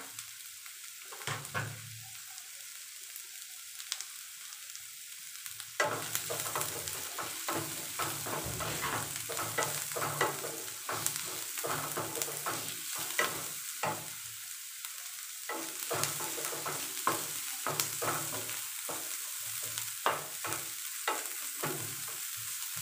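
Chopped onions, garlic and dried red chillies sizzling in oil in a nonstick frying pan, stirred with a wooden spatula that scrapes and taps against the pan. The sizzling and stirring get louder about six seconds in.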